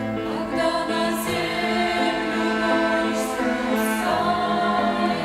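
Mixed church choir singing a hymn in slow, sustained phrases, accompanied by a violin ensemble.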